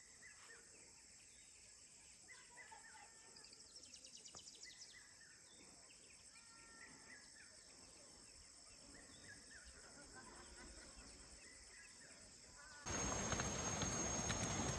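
Faint rainforest ambience: scattered short bird chirps and a quick rising trill of high ticks over a steady high insect hum. About thirteen seconds in it cuts abruptly to louder forest sound with a steady high insect tone and rustling.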